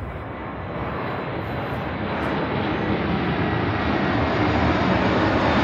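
Jet airliner flying low overhead on its approach, its engine noise growing steadily louder, with a faint high whine over a deep rumble.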